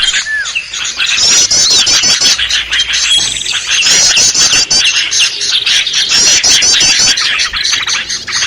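A dense, loud chorus of small songbirds from a bird-luring recording, many calls overlapping. A rapid, high chattering trill repeats about every two seconds over busy chirps and squawks.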